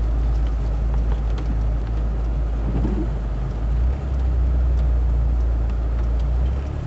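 Car driving, heard from inside the cabin: a steady low drone of engine and road noise, dipping briefly about four seconds in.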